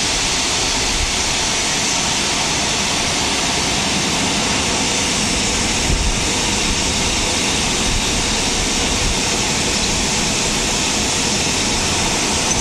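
Automatic rollover car wash working over a car: a steady rushing noise of water spray and rotating brushes.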